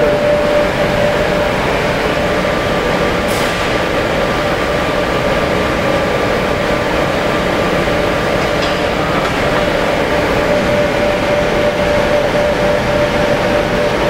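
Gas-fired crucible furnace running flat out, a steady loud roar of the burner flame with a steady tone over it.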